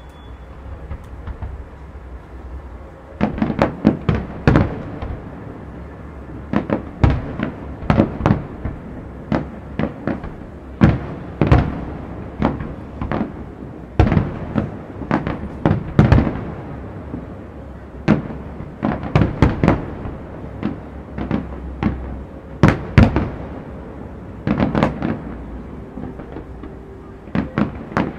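Aerial fireworks shells bursting, dozens of sharp bangs, many in quick clusters, with a steady low background rumble between them. The bangs begin about three seconds in.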